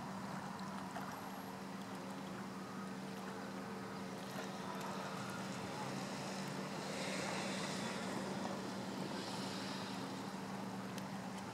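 Shoreline ambience: a steady low mechanical hum under a hiss of wind and surf, with the hiss swelling briefly about seven seconds in.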